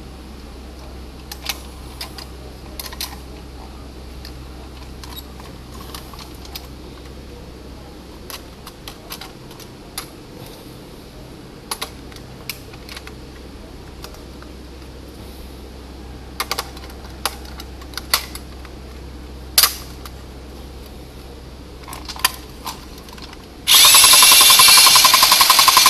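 Battery-operated tin flying saucer toy: scattered clicks and knocks of its tin body and battery cover as batteries are fitted, then, near the end, the toy switched on and its motor mechanism running with a loud, rapid buzz.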